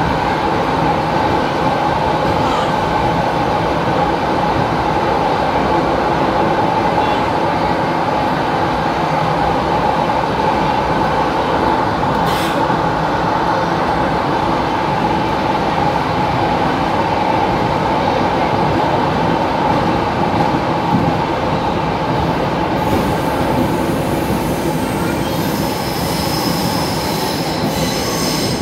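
Buenos Aires Subte Line E train running through the tunnel, heard from inside the car: a steady loud rumble of wheels and running gear with a steady whine. A sharp click comes about twelve seconds in, and a high squeal near the end.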